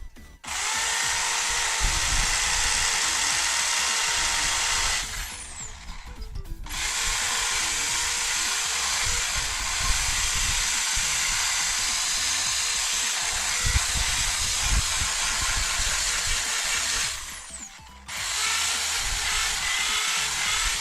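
Electric drill running in three long bursts with short pauses between, drilling out the rivets on the end of a motorcycle exhaust muffler.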